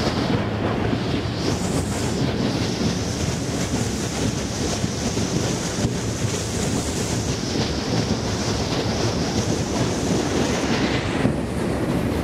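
A ship's bow breaking through thin ice up to about 15 cm thick: a steady, dense rushing and grinding noise of ice against the hull. The higher hiss drops away near the end.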